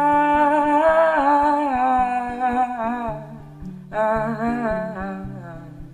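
Background song: a voice holds one long, gently wavering sung note, then sings a shorter second phrase about four seconds in, over acoustic guitar accompaniment.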